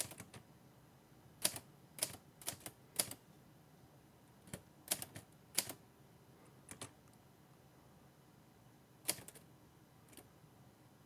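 Hermes 3000 manual typewriter being typed on to test a newly fitted ribbon: single sharp key clacks at an uneven pace. They come close together in the first few seconds, then a few more spread out with pauses, the last about nine seconds in.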